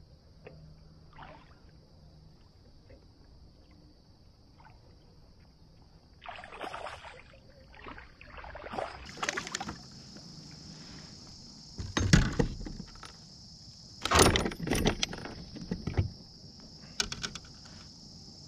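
A smallmouth bass being landed into a plastic fishing kayak: splashing, then sharp knocks and rattles against the hull and gear, loudest in the second half. A steady high drone of insects runs underneath.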